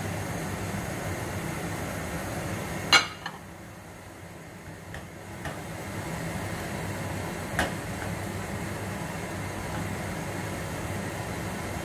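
Utensils knocking and scraping against a bowl and a nonstick frying pan while squid in sauce is stirred, over a steady low hum. A sharp clack about three seconds in is the loudest sound, followed by a few light taps and a second clack near eight seconds.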